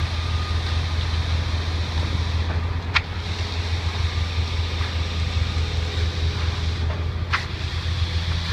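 The engines of a concrete pump and a ready-mix truck running steadily in a low hum. Two short sharp sounds come about four seconds apart, about three seconds in and near the end.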